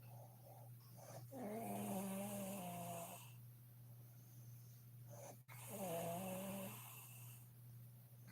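A woman snoring in her sleep: two long, pitched snores about four and a half seconds apart, over a steady low hum.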